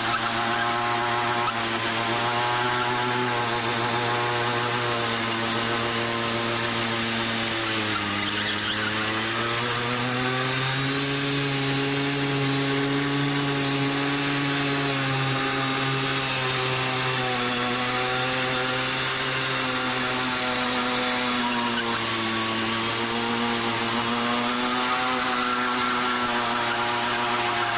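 Simson Star moped's 50 cc single-cylinder two-stroke engine held steadily at high revs during a burnout. The pitch rises a little about ten seconds in and eases back a few seconds later.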